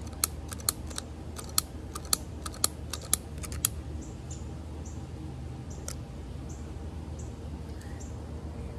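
Trigger of a butane utility lighter clicked over and over, a quick run of sharp clicks for the first few seconds, then one more click about six seconds in: the igniter sparking until the flame catches.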